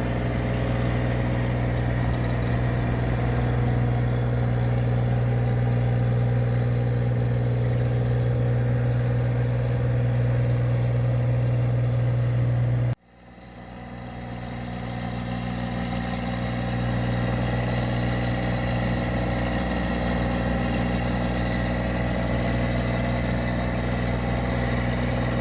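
Engine of a paddy (rice) machine running at a steady speed, a constant low hum. About halfway through, the sound cuts off abruptly, then fades back in over a few seconds and runs steadily again.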